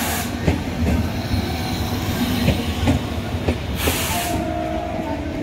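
Passenger train coaches rolling past on the track, a steady low rumble with wheels clicking over rail joints about twice a second. A brief hiss rises just before 4 s, and a thin steady wheel squeal comes in near the end.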